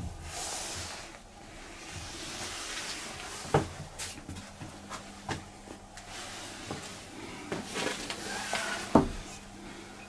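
Scattered knocks, clicks and rustling, with two louder knocks about three and a half seconds in and near nine seconds.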